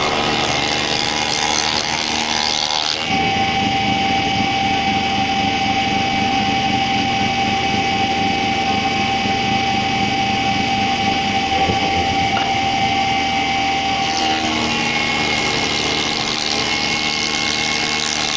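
Wood spindle moulder running with a steady high motor whine. During the first three seconds, and again from about fourteen seconds in, a wooden piece is fed against the spinning cutter, adding a harsh, hissing cutting noise. In between, the machine spins freely with no cutting.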